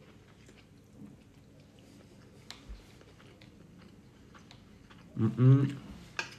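A person chewing a mouthful of couscous salad quietly, with a few faint clicks. About five seconds in, a short burst of the eater's voice is the loudest sound.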